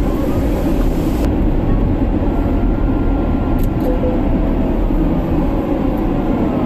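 Steady low rumble inside a Porsche Macan's cabin while driving on a gravel dirt track: tyre and road noise with the engine running underneath.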